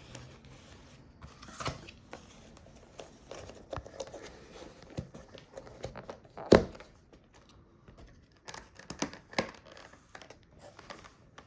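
Paper towel being torn and crinkled while layering berries in a storage container, with scattered light clicks and knocks of handling and one loud knock about six and a half seconds in.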